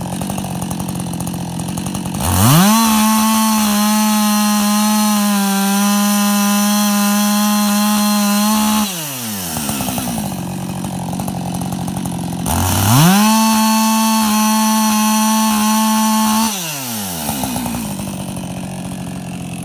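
Husqvarna 562XP two-stroke chainsaw with a skip chain idling, then revved to full throttle twice: once about two seconds in and again about halfway through. Each time it is held at a steady high pitch for several seconds, then drops back to idle.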